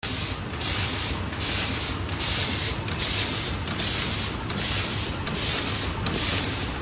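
Ripple paper cup sleeve forming and hot-melt gluing machine running at production speed: a steady low hum under a hiss that swells and falls in a regular cycle, a little more than once a second.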